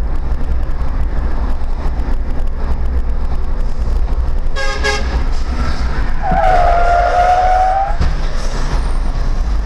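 Steady low rumble of a vehicle on the road, with a short car-horn toot about four and a half seconds in, then a longer horn blast of about two seconds.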